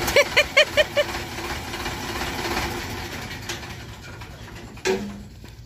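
Sonalika DI-35 tractor's diesel engine running at idle, its noise slowly fading. Five quick short beeps sound in the first second.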